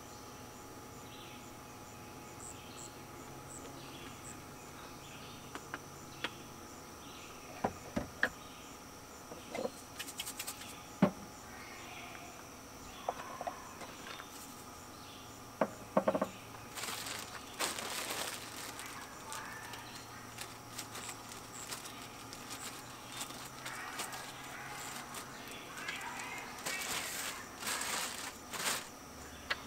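Insects chirping in a steady high drone, with scattered knocks and clicks and, twice later on, louder rustling and clattering of things being handled.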